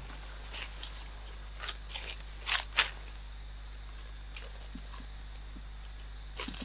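Dry leaf litter crackling in a handful of short rustles on the forest floor as a person steps and crouches, with a couple of fainter rustles later.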